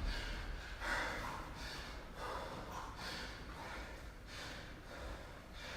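Exhausted athlete breathing hard through a rest between barbell reps: short, faint, hissy breaths in quick succession.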